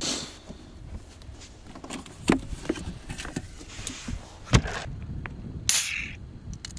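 A Yeti hard-sided cooler being opened and rummaged through: scattered knocks and clunks from the lid and the contents, the loudest about four and a half seconds in, then a brief rustle near the end.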